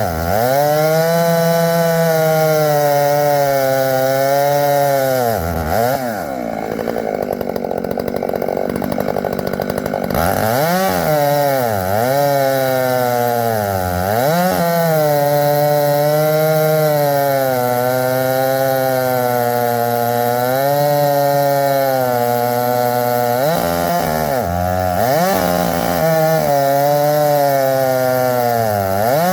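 Two-stroke chainsaw cutting poplar wood at high revs. Its engine pitch sags repeatedly as the chain bites into the wood and climbs again as it frees. From about six to ten seconds in it drops to a low idle.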